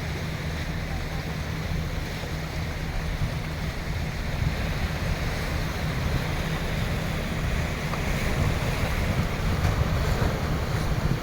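Sea waves washing in a steady rush, with wind buffeting the microphone as a low rumble; the surf swells a little louder in the second half.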